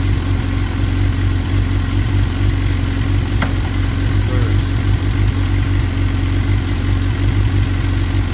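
Suzuki GSX-R1000 K1's inline-four engine idling steadily.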